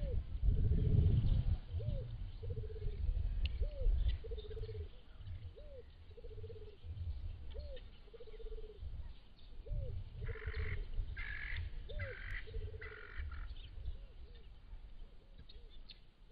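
A dove cooing over and over, a short rising-and-falling note followed by a lower flat note, about once a second, over a low rumble of wind on the microphone. Four short raspy calls come in a row about two-thirds of the way through.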